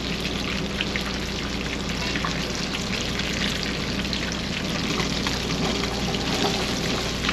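Masala-coated karimeen (pearl spot fish) shallow-frying in hot oil in a pan, with a steady sizzle full of fine crackles and spits.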